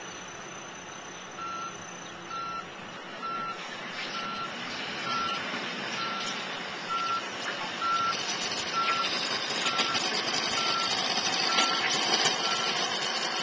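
Construction vehicle's backup alarm beeping steadily, one short high beep a little under once a second, over engine and machinery noise that grows louder through the second half.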